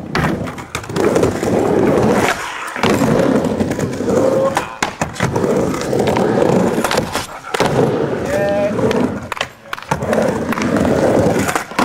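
Skateboard wheels rolling on wooden plywood ramps: a rumble that comes in runs of about two seconds with short breaks between, as the board goes back and forth. Sharp clacks of the board and trucks hitting the ramp are scattered through it.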